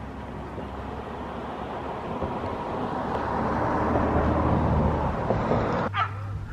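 A car passing on a nearby road, its engine and tyre noise slowly growing louder over several seconds, then cut off suddenly near the end.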